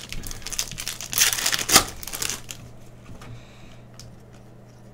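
Foil wrapper of a Panini Prizm basketball card pack being torn open and crinkled by hand, loudest in the first two and a half seconds, then fainter rustling as the cards come out.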